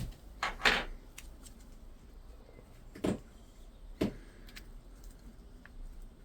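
Short scraping and knocking noises from brake caliper parts and tools being handled on a workbench. There are two close together just under a second in, the second the loudest, then single ones about three and four seconds in.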